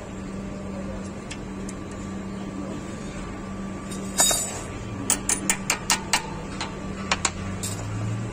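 Sharp metal clicks and taps as a brake pad retaining pin is worked into a front brake caliper: one click about halfway through, then a quick run of about six, and two more near the end, over a steady low hum.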